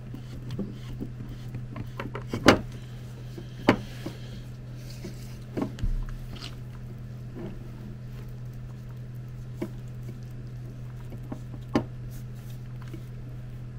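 Scattered light clicks and taps from handling a red-and-black power cable as it is fed through a plastic compressor housing, over a steady low hum.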